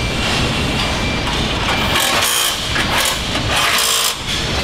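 Car assembly-line machinery running steadily. From about two seconds in come several short bursts of high compressed-air hiss from a pneumatic tool on an air hose.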